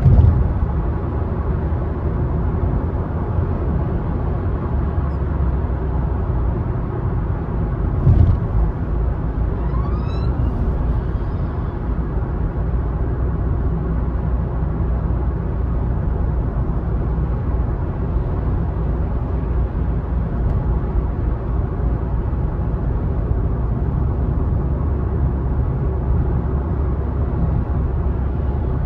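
A car driving along a country road: steady low rumble of tyres and engine. There is a thump right at the start and another about eight seconds in.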